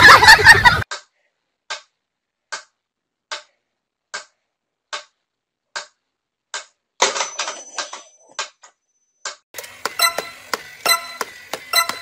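Sharp ticks at an even pace, a little more than one a second, after a moment of loud shouting at the start. About halfway through, the ticks give way to a busier clatter of clicks with thin high tones.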